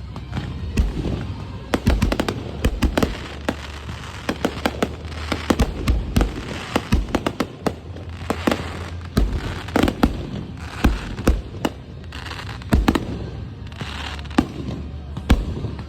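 Fireworks going off in a fast, irregular run of sharp bangs, often several a second.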